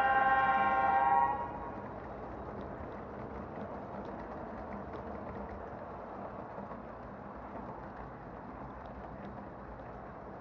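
A model train's horn sounds a steady chord and cuts off abruptly about a second in, followed by the steady rolling rumble of a model freight train running past on the track, with faint clicks.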